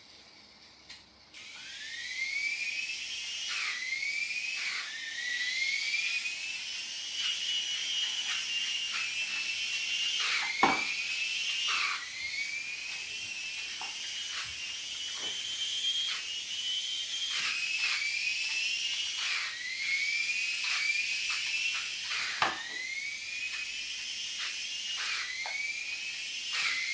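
Small electric drive motor of a toy RC motorbike whining, its pitch climbing as it speeds up, then dropping and climbing again over and over as the throttle comes on and off. Two sharp knocks stand out, about ten seconds in and again about twenty-two seconds in.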